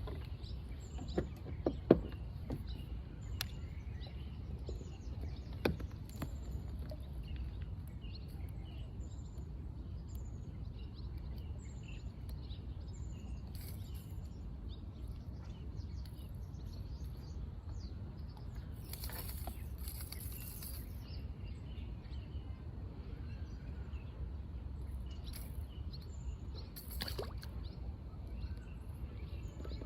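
Outdoor ambience on the water: a steady low rumble, with a bird repeating short high chirps about once a second. A few sharp knocks in the first six seconds, the loudest about two seconds in, and a brief rush of noise about two-thirds through.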